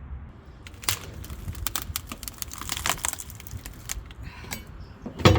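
Wet, rotten wood siding being pried and torn off a boat cabin: a run of sharp cracks and scrapes, then a loud heavy thud near the end as a piece comes away.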